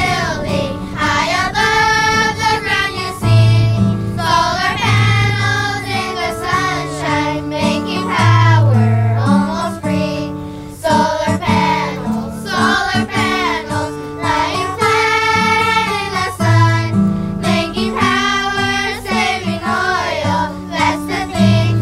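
Elementary school children's choir singing a song over instrumental accompaniment with a steady bass line.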